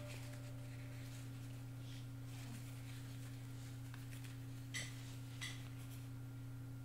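Quiet room tone with a steady low hum, and two brief soft handling sounds about five seconds in as a leather batting glove is turned over in the hands.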